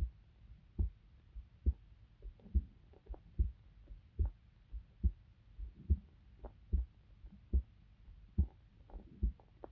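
A person's heartbeat picked up by a microphone held against the body: steady low thumps at about seventy beats a minute, with faint clicks between the beats.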